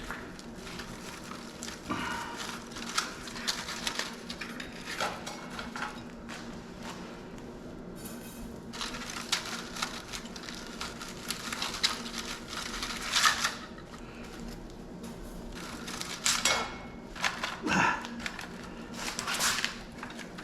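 Irregular metallic clinks, taps and scrapes from hand work on an old welder's heavy copper windings, with a few longer scraping pulls.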